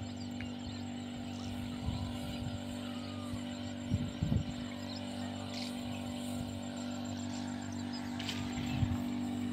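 Small engine of a motorized backpack sprayer running steadily at a constant pitch while misting pesticide over cotton plants. A couple of short low thumps come about four seconds in.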